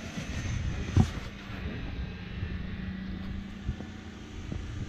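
Jeep Wrangler engine running at low revs as it crawls over rock, with one sharp thump about a second in.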